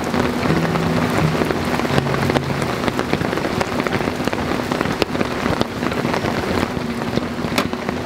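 Steady rain pattering on the tarp overhead and the wet ground, a dense hiss full of small sharp drop taps.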